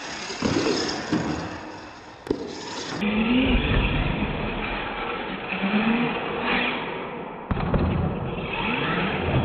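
RC monster truck's electric motors revving up and down and its tyres scuffing on concrete, with clattering knocks as it lands off ramps and tumbles.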